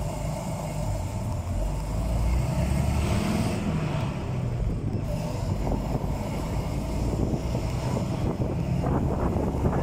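A vintage bus's engine runs as the bus pulls away from standstill and drives on, heard from inside the bus with road noise. The engine swells at the start and is loudest a few seconds in.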